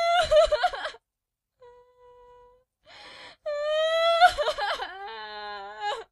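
A high-pitched, childlike voice wailing and whimpering in short, separate cries, cut apart by silent gaps. A faint steady beep sits in one gap, and a buzzy sustained tone follows near the end.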